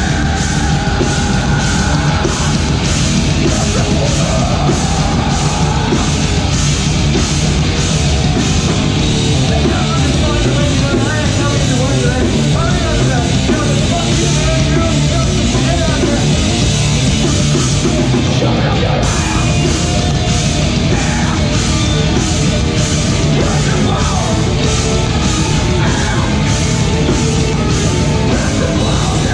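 Metalcore band playing live: distorted electric guitars, bass and a pounding drum kit with crashing cymbals, a loud, unbroken wall of sound, with a vocalist screaming into the microphone over it.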